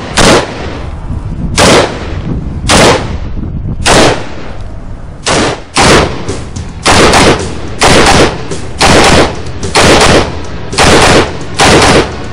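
Gilboa pistol (short-barrelled AR-type) firing about thirteen sharp reports at an unhurried pace, roughly one every second, each with a short echo.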